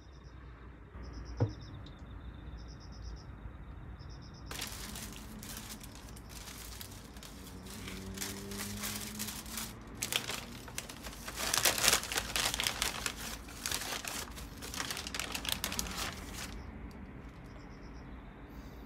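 Crinkling and rustling of something being handled, such as packaging, starting about four and a half seconds in, loudest around twelve seconds in, and stopping a couple of seconds before the end. A single sharp knock comes about a second and a half in.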